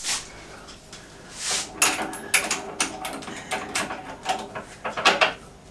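Irregular clicks and knocks of a workpiece and tools being handled and set up at a drill press, with a short rush of noise about one and a half seconds in.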